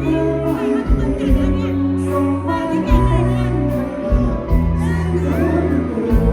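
A live band playing loud music with a singer, over a steady drum beat and bass.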